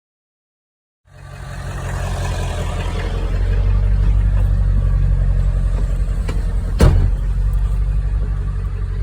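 2000 Ford F-250's 7.3-liter Powerstroke turbo-diesel V8 running, cutting in about a second in and building over the next couple of seconds to a steady, loud run. A single sharp knock comes near the end.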